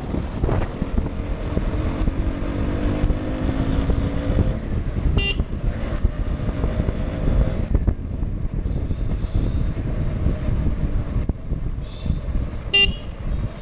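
KTM Duke's single-cylinder engine running under the rider with wind rushing over the microphone, its pitch rising slowly as it pulls in the first half. Two short horn toots sound, about five seconds in and near the end.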